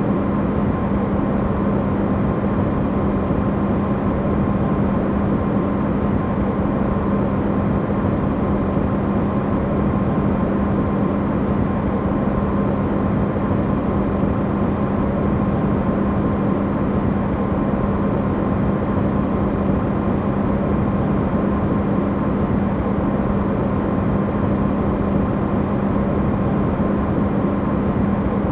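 Electrolux refrigerator running, recorded amplified: a steady low hum with a fainter, higher tone over an even rushing noise.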